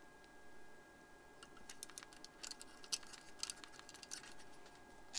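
Small metal fittings, a solder tag and star washers, clicking and rattling as they are handled, in a quick scatter of light clicks that starts about a second and a half in.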